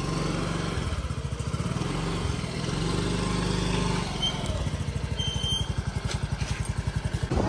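A Yamaha Fascino scooter's single-cylinder four-stroke engine running at idle with a steady, even exhaust beat. The pulsing becomes more distinct about four seconds in.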